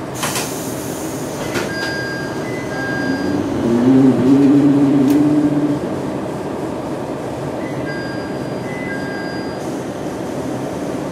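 KiHa 110 series diesel railcar running along the line, heard from inside the passenger cabin: a steady rumble of engine and wheels on rail, with a louder wavering drone swelling about four seconds in and fading by six, and faint thin high squeals twice.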